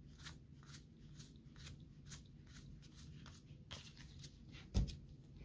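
Faint handling of Magic: The Gathering trading cards: soft clicks and flicks, about three a second, as cards are flipped through. A single low thump comes a little before the end.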